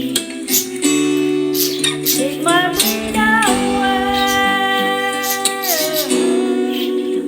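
Background music: acoustic guitar backing with a female voice singing, which slides up into one long held note a few seconds in and slides down off it near the end.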